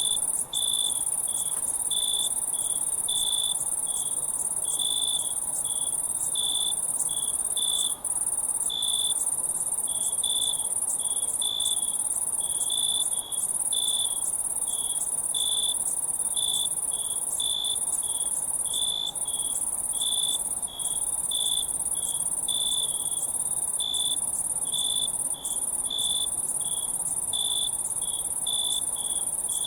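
Crickets chirping in an even rhythm, about two chirps a second, over a continuous high-pitched insect trill.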